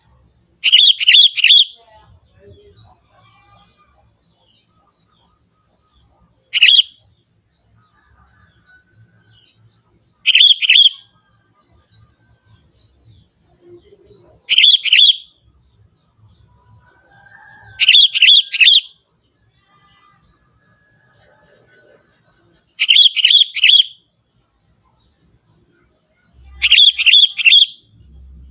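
Young sooty-headed bulbul (kutilang) calling: seven short, loud bursts of quick repeated notes, one every three to five seconds, with faint chirps between.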